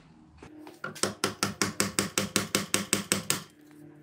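Fast, even metallic clicking from a hand tool, about six clicks a second for a couple of seconds, starting about a second in.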